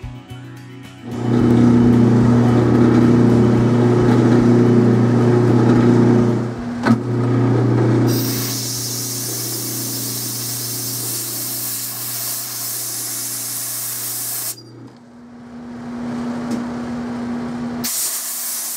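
Atlas metal lathe running while a two-wheel knurling tool rolls a diamond knurl into the spinning metal bar, giving a steady machine hum. From about eight seconds in a loud hiss joins for several seconds and then cuts off. The hiss comes back near the end.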